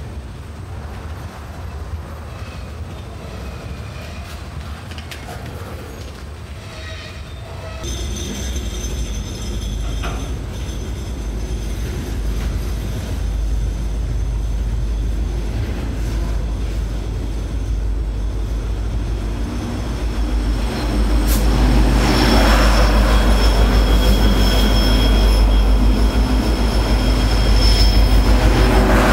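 A freight train's cars rolling past below, the wheels on the rails giving steady high squealing tones. About 21 seconds in, the louder, steady running of a Norfolk Southern diesel locomotive at the rear of the train comes up and passes beneath.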